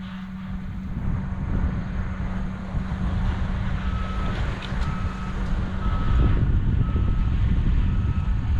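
A vehicle's backup alarm beeping at a steady rate of about one beep a second, starting about four seconds in, over the low rumble of a running engine.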